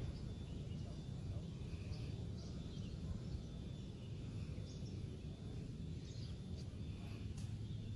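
Outdoor ambience on a golf course: a steady low rumble with faint, scattered bird chirps.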